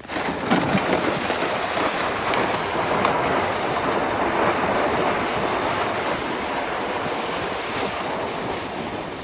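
Steady rushing wind noise buffeting the microphone, starting abruptly.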